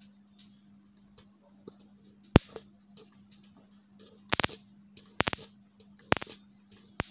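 Electric mosquito racket's charged grid arcing to a screwdriver blade: sharp spark snaps, one about two seconds in, then short crackling clusters about once a second, over a faint steady hum. The sparking shows that the racket, fitted with a new step-up transformer, is putting out its high voltage again.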